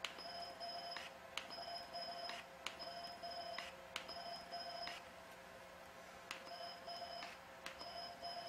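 ULGEN HIFU handpiece firing lines of shots through its 1.5 mm cartridge: each line is a click, a high electronic beeping tone lasting under a second, and another click. The lines repeat about every 1.3 seconds, with one short pause about halfway through as the handpiece is moved to a new spot.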